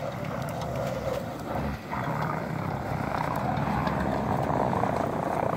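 Mitsubishi Montero Sport's engine working hard under load as the SUV climbs a steep snowy slope, growing gradually louder.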